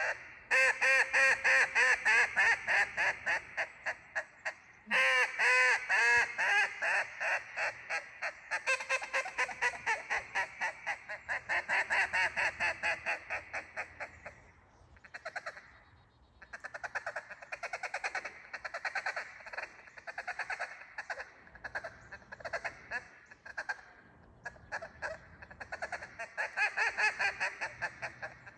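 Acrylic Riceland Meat duck call blown in runs of quick, rapid quacking notes with short pauses between runs, loudest in the first runs.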